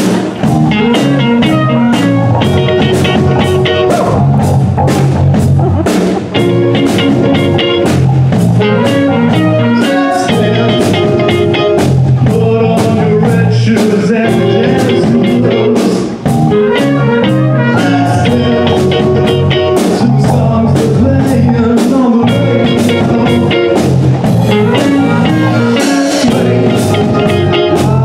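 Live student band playing an up-tempo tune on drum kit, electric bass, piano and saxophones, with a steady drum beat.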